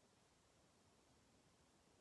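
Near silence: faint steady room tone and hiss.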